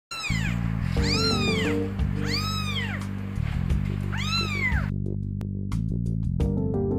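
A 24-day-old kitten meowing four times, each call a high cry that rises and then falls, calling for its mother. Background music with a steady bass line plays underneath and carries on alone after the last call, about five seconds in.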